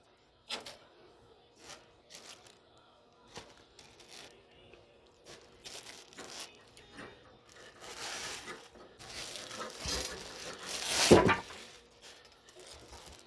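Packaging being handled and torn during unboxing: scattered small knocks and clicks, then a few seconds of tearing and crinkling that is loudest about eleven seconds in.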